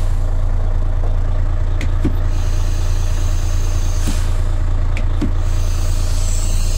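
Mercedes-Benz Actros 1843's V6 diesel idling steadily, heard from inside the cab, with a few light clicks. Near the end, compressed air begins to hiss from the truck's air-brake system.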